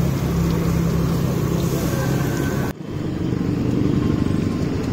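Bread pakoras deep-frying in a kadhai of hot oil, the oil sizzling over a steady low hum of street traffic. A little under three seconds in, the sound cuts off abruptly and comes back as the street hum with less of the sizzle.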